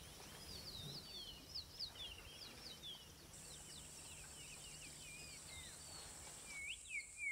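Faint natural ambience of many small birds chirping in short, quick calls. A steady high whine joins about a third of the way in, and the chirps grow louder near the end.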